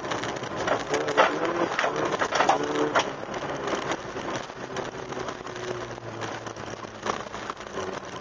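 Opel Astra GSi rally car driving on a loose gravel track: tyres crunching and stones clicking against the car, with the engine running low underneath.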